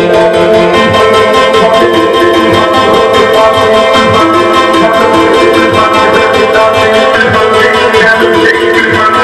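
A music jingle played very loud through a large sound-system rig during a sound check, dense and continuous at near full volume.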